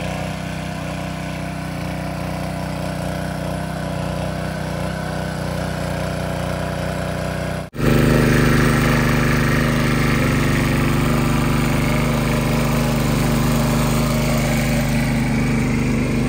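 The 9 HP Honda GX single-cylinder petrol engine of a walk-behind power tiller runs steadily under load, driving a PTO rotary plough through the soil. There is a brief break about halfway through, after which the engine is louder.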